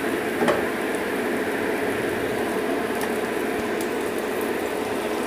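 Onions and ground spice paste sizzling steadily in hot oil in a frying pan, with a faint steady hum underneath and a small click about half a second in.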